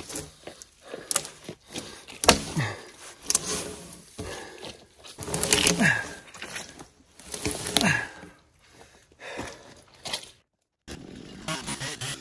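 Chainsaw cutting a fallen conifer log, revving in surges; three times the engine winds down, its pitch falling. It cuts to silence briefly near the end, then runs steadily again.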